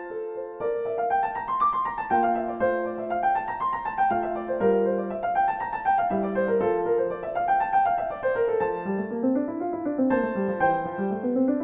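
Gentle solo piano music: flowing runs of notes rising and falling over held bass notes.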